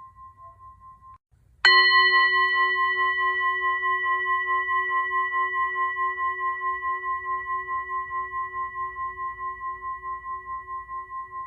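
Singing bowl struck once about a second and a half in, ringing on long and slowly fading with a steady pulsing wobble. Just before the strike, the previous ring cuts off abruptly.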